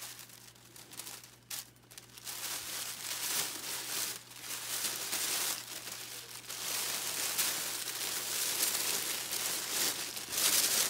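Crinkling and rustling of a package's wrapping as the twine tie is worked loose and the wrapping pulled open. Soft, scattered handling for the first few seconds, then steady crinkling that grows louder toward the end.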